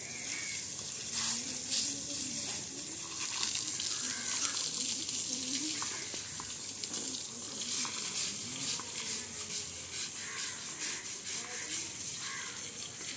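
Water from a garden hose spraying and splashing on an elephant's hide as the elephant is washed, a steady hiss with scattered crackles.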